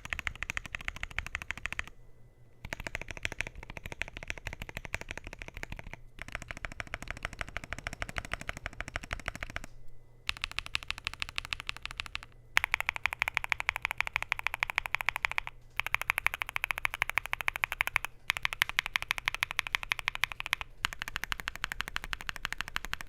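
Fast typing on a Luminkey LK65 mechanical keyboard with Gateron Sylva switches, polycarbonate plate and PBT keycaps: rapid runs of many keystrokes a second, broken by short pauses about every two to four seconds.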